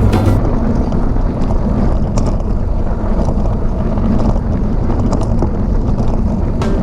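Wind buffeting the microphone of a camera carried on a moving bicycle: a loud, steady, noisy rumble.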